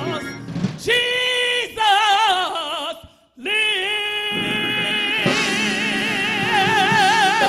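A solo singer holding long, high notes with a wide vibrato, breaking off briefly a little past three seconds in, then going on with more held, wavering notes.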